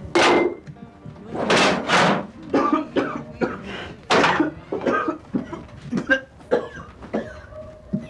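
A person coughing harshly several times in short fits, over music.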